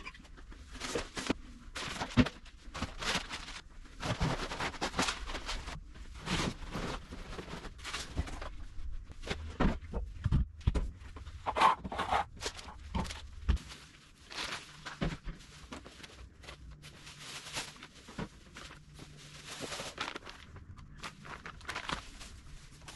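Pantry goods being handled and moved: an irregular run of knocks, clunks and clicks from cans, bottles and boxes, mixed with rustling of food packaging. A low hum runs underneath for the first half and stops about halfway through.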